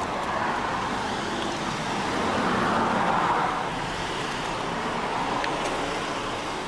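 Steady road traffic noise, swelling a little around the middle as a vehicle goes by.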